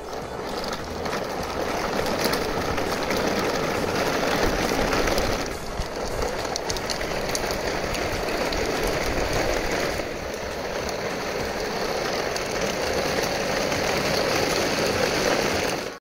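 Plastic wheels of a line of toy dump trucks rolling over rough concrete: a steady rolling noise that dips briefly about six and ten seconds in.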